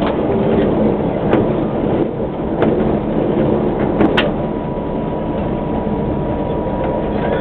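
Tatra K2 tram running along the track, heard from inside the car: a steady rumble with a few sharp clicks, the loudest about four seconds in, where a thin steady whine comes in.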